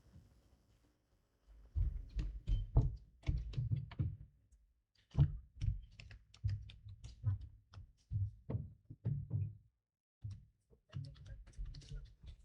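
Irregular dull thumps and knocks in clusters, with a few sharp clicks among them, in runs of a second or two with short gaps between.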